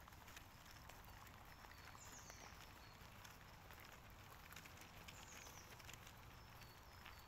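Near silence with faint high bird calls, two falling chirps about two and five seconds in, and faint footsteps on leaf litter.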